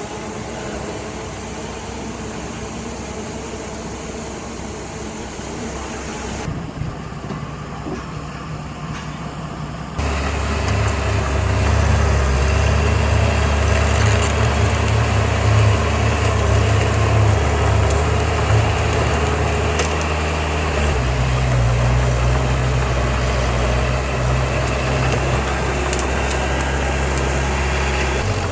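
Heavy construction-machine diesel engine running steadily with a deep, low drone. It jumps abruptly louder about a third of the way in and shifts pitch again about two-thirds through.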